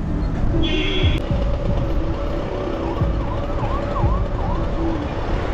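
Road and engine noise inside a moving car's cabin. About three seconds in, a short warbling, siren-like wail sounds for a second or two.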